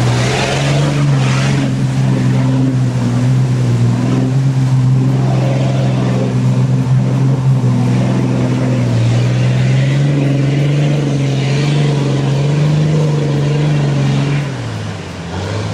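Modified 4WD competition truck's engine held at high, fairly steady revs as it ploughs through mud, with mud and water splashing in the first second or so. The engine note dips briefly near the end, then picks up again.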